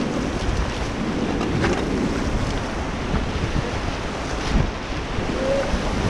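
Whitewater river rapids rushing steadily around an inflatable raft, with wind buffeting the microphone in low gusts.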